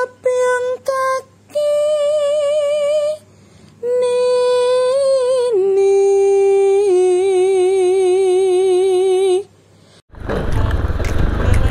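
A woman's wordless singing voice, a single melody line with wide vibrato: short held notes at first, then long held notes stepping down in pitch. About ten seconds in it stops, and outdoor street noise takes over.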